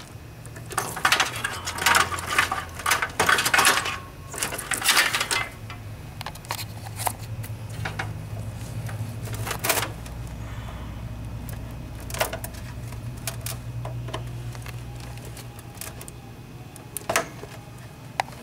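Clicking and rattling of wires and small plastic connectors being handled and plugged in inside a computer case: a dense run of rattles over the first few seconds, then single clicks a few seconds apart.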